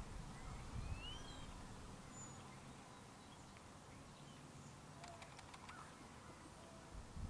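Quiet farmyard ambience with small birds chirping now and then in the distance, one rising chirp about two seconds in. A few faint clicks come a little after halfway, and a low rumble comes and goes near the start and end.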